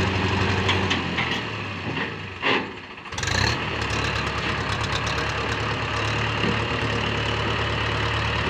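Mahindra tractor's diesel engine idling steadily, with a short dip in the sound about three seconds in before it settles back to the same even running.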